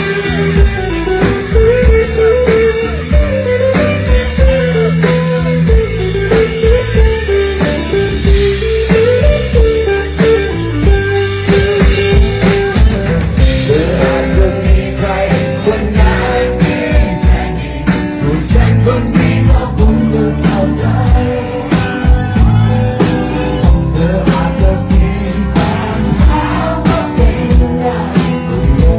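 Live rock band playing a song with singing over acoustic guitar, electric bass and drum kit; the drum beat comes through more sharply from about halfway.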